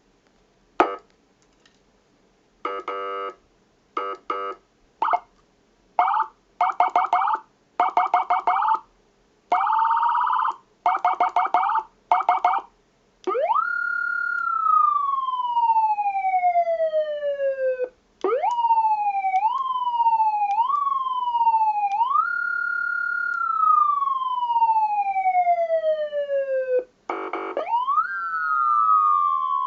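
YL-216T20 200 W + 200 W dual-output electronic siren running through its tones. First comes a series of short, buzzy horn-like blasts and chirps. From about halfway on, long siren glides each jump up in pitch and slide slowly down; one climbs in steps before falling.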